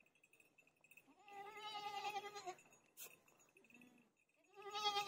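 Young buffalo calf bleating twice, each call about a second long and fairly level in pitch, the second near the end. A faint steady high whine runs underneath.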